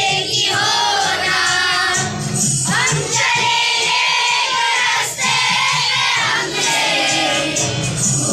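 A small group of boys singing together in short phrases, with brief breaks between the lines.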